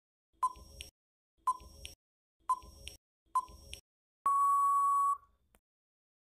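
Countdown timer sound effect: a short tick-beep about once a second, four times, then one long steady beep of about a second, starting a little after four seconds in, as the countdown ends.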